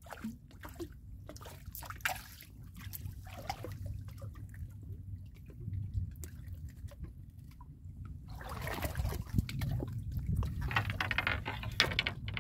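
Light splashing and dripping water as a small piau is lifted out of the water on a fishing line, over a low steady rumble. In the second half, louder rustling and handling noise as the fish is held and unhooked by hand.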